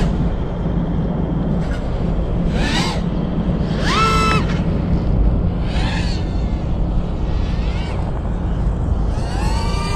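FPV freestyle quadcopter's motors and propellers whining in short bursts that rise and fall in pitch with the throttle, several times, over a steady rumble of wind on the microphone.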